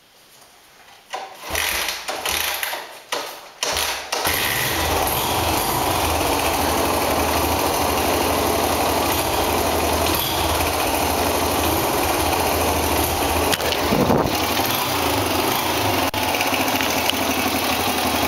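Suzuki DR-Z125L's small single-cylinder four-stroke engine being started on choke: a few short bursts as it fires and dies, then it catches about four seconds in and idles steadily, with one short rev about two thirds of the way through.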